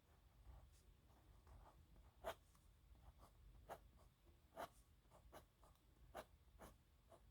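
A nib pen scratching faintly across paper in short writing strokes, with sharp ticks of the nib roughly every second as strokes begin and end.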